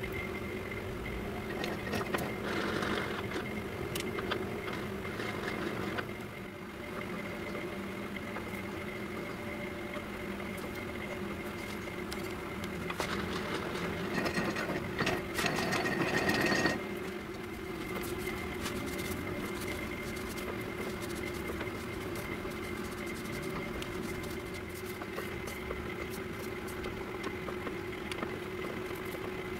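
Metal lathe running steadily, its drive humming with a faint, thin high whine. Scattered light clicks come through, and a louder, noisier stretch starts about twelve seconds in and cuts off abruptly about four seconds later.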